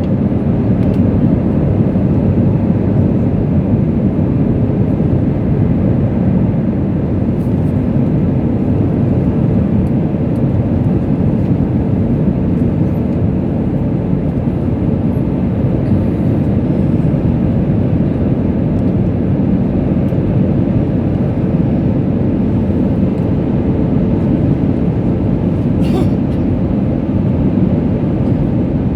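Steady low cabin noise of an airliner in flight, heard inside the cabin, with a faint steady hum in it.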